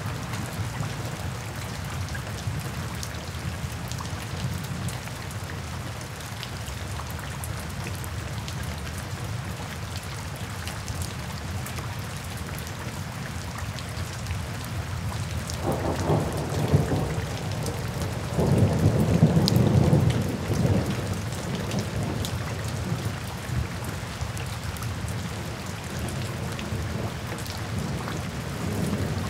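Steady rain falling on wet, puddled pavement, with drops spattering. Low rumbles of thunder come about halfway through, the second one longer and louder.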